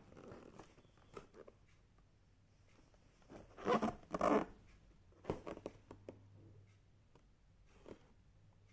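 Hair dryer and its packaging being handled during unboxing: scattered clicks and knocks, with two loud rasping rustles about four seconds in.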